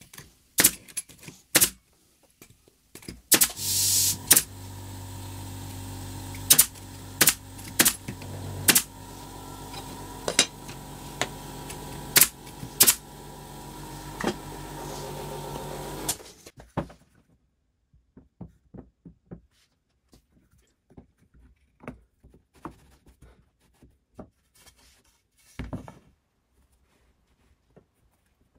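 Pneumatic brad nailer firing a dozen or so nails into the jig's fence, sharp shots roughly a second apart. An air compressor starts with a hiss about three and a half seconds in, runs with a steady hum and cuts off suddenly near sixteen seconds in. After that come only light taps of wood and squares being set down.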